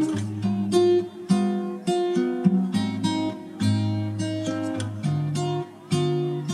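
Background music: an acoustic guitar playing plucked chords, struck about once a second, each ringing out before the next.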